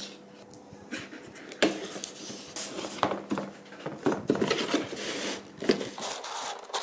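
A box cutter slicing the tape on a cardboard box, then the cardboard box being handled and its flap pulled open: irregular scrapes and rustles of cardboard with several sharp taps and clicks.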